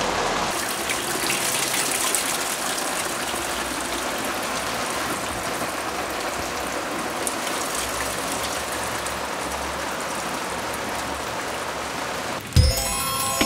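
Steady rush of running water. Near the end a low thump, then several held tones come in.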